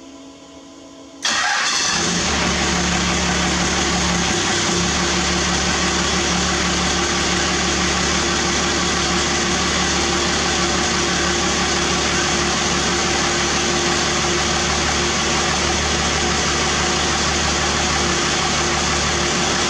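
First-generation Dodge Ram's Cummins 5.9-litre inline-six turbo-diesel, fitted with a 4-inch straight-pipe exhaust, starts about a second in and settles into a steady idle.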